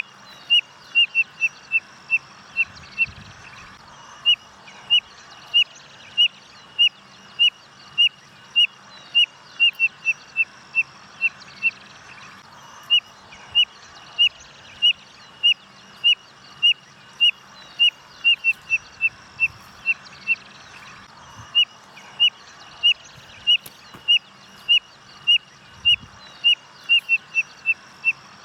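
Spotted nothura (codorna-amarela) singing: a long series of short, high whistled notes, each phrase starting at about one note every half second and quickening into a faster run before a brief pause, then starting again, about three times over.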